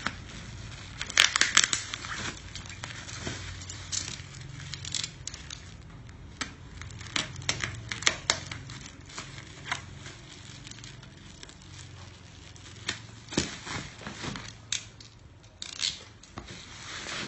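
Bubble wrap being pulled and peeled off a boxed laptop: irregular crinkling, tearing and sharp crackles of plastic, loudest about a second in.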